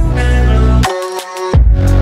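Electronic background music with deep bass notes that start again in a steady rhythm.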